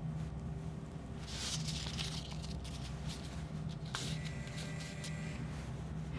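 Foley rustling and crinkling with a few sharp clicks, strongest in the first half, over a steady low hum.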